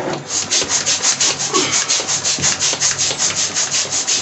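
Air pump being worked fast to inflate a large latex balloon, a steady run of about five quick airy puffs a second.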